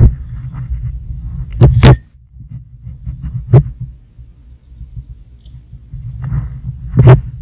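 A low, uneven rumble with four sharp knocks: two close together about one and a half seconds in, one near three and a half seconds, and one near seven seconds.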